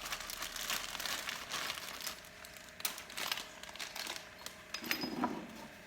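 Packaging crinkling and rustling as pressure-washer parts are handled, with scattered light clicks and knocks, busiest in the first two seconds.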